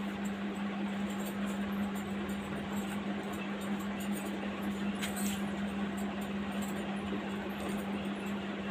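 A steady low hum over a constant hiss of room noise, with a faint click about five seconds in.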